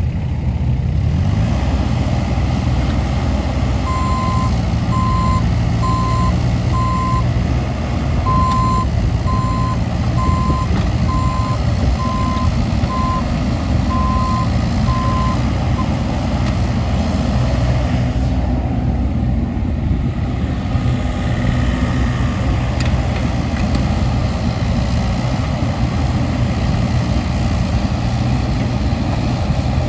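2019 Wacker Neuson EZ26 mini excavator's diesel engine running steadily while the boom, arm and bucket are worked. Its warning alarm beeps about once a second from about four seconds in until about halfway through, with a short break in between.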